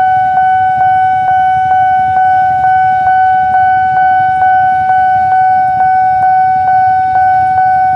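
Railway level-crossing warning bell ringing: one high electronic tone struck over and over, about twice a second. It signals that the barrier is down and a train is approaching.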